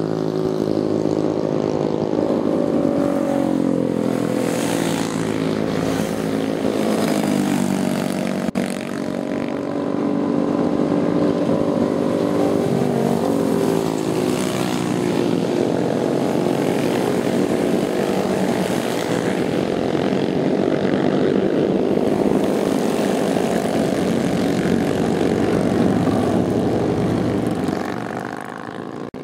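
A group of Kikker 5150 Hardknock bobber motorcycles riding past, their engines running with a steady drone that rises and falls a little in pitch, fading out near the end.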